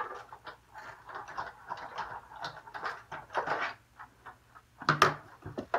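Sizzix Big Shot embossing machine being hand-cranked, pressing the platform with a dynamic embossing folder and acrylic plate through its rollers: a run of irregular clicks and creaks, with a louder knock about five seconds in.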